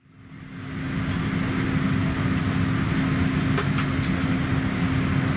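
Steady cabin noise inside a Boeing 787-9 airliner parked at the gate before pushback: a constant hum with one steady low tone over a low rumble. It fades in over the first second, and a few faint clicks come about three and a half to four seconds in.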